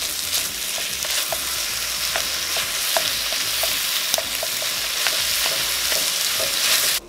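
Raw ground beef sizzling in hot oil as it starts to brown in a white enameled pot, with a wooden spatula breaking it up and scraping and tapping against the pot now and then. The sizzle cuts off abruptly near the end.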